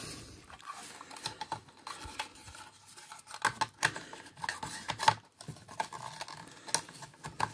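Hard plastic parts of a JOYTOY 09ST FEAR mecha figure clicking, tapping and scraping against each other in irregular bursts as a tight-fitting armour piece is pressed back into place.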